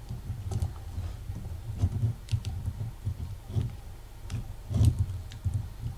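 Scattered small clicks and taps of pliers working a wire around a guitar potentiometer's solder lug, with a few soft handling knocks.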